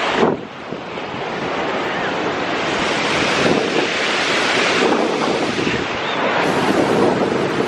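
Sea surf washing onto a beach, swelling and easing, with wind buffeting the microphone.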